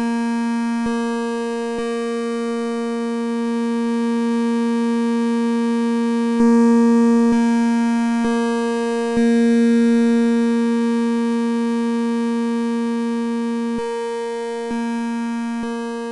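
A steady, buzzy electronic tone held on one pitch. Its tone colour changes abruptly about nine times, each change with a click, and it grows louder in the middle before easing off.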